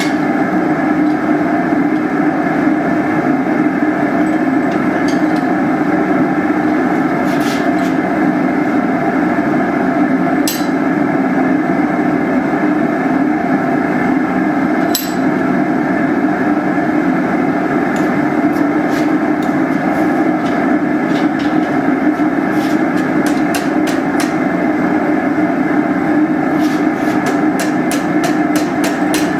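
Hammer striking hot iron railroad-spike stock on an anvil: a few separate blows at first, then blows coming more often and in quick runs near the end. Under them runs the steady rushing noise of the forge.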